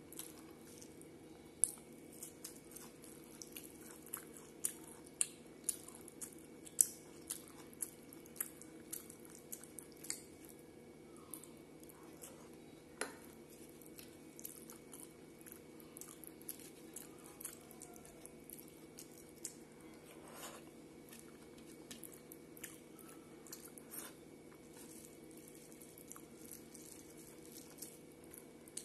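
Eating by hand from a stainless steel plate: fingers mixing food against the metal, with chewing and mouth sounds. Many short sharp ticks, thickest in the first ten seconds and sparser later, over a steady low hum.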